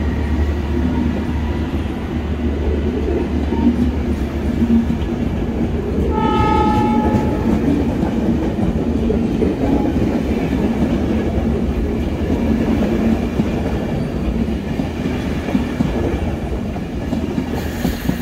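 Enterprise passenger train rolling slowly past, its carriages' wheels rumbling and clacking on the rails. About six seconds in, a train horn sounds once for about a second and a half.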